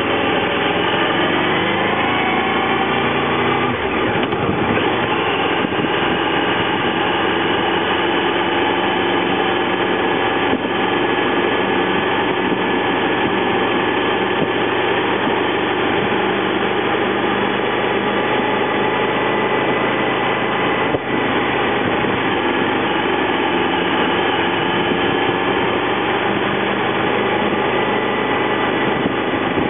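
Honda VFR800's V4 engine running under way on a motorcycle. Its pitch rises over the first few seconds, drops around four seconds in, then holds fairly steady at an easy cruising pace.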